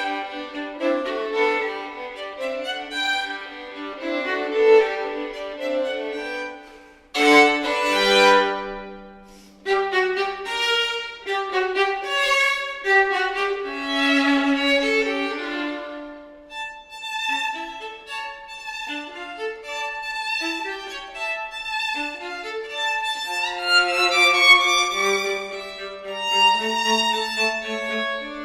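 Violin and viola playing a classical duet: sustained bowed notes in two voices with a sharply accented chord about seven seconds in.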